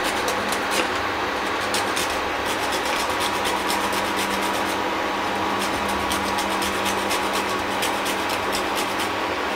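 A whole nutmeg being grated on a fine metal rasp grater: repeated quick scraping strokes, a few a second with short pauses, stopping just before the end. A steady low hum runs underneath.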